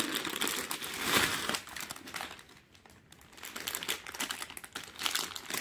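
Plastic packaging crinkling and rustling as a courier mailer is opened and a garment in a clear plastic bag is pulled out, in two spells with a short lull in the middle.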